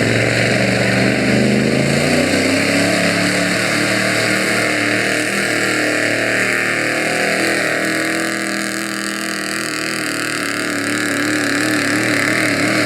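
Pickup truck engine running hard under load during a truck pull, its pitch shifting about two seconds in and then holding fairly steady.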